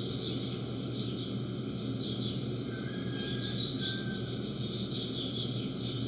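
Steady background noise with a low hum and faint, short high chirps repeating throughout; a brief faint whistle-like tone sounds about three seconds in.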